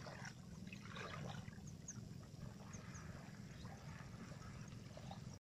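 Faint outdoor ambience: a steady low rumble with a few short, high bird chirps scattered through it. It cuts off abruptly at the end.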